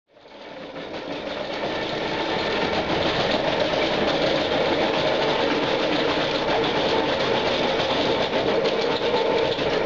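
Roadheader's rotating cutting head grinding into the face, a dense, continuous grinding clatter over a steady machine hum. It fades in over the first couple of seconds.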